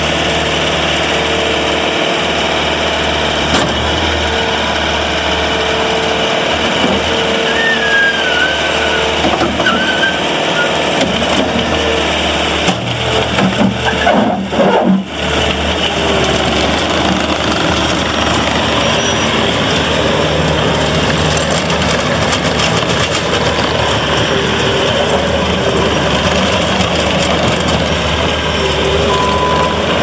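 Bobcat T590 compact track loader's 66 hp Doosan diesel engine running steadily while the machine drives and turns on its rubber tracks. About halfway through there is a short, uneven, louder stretch.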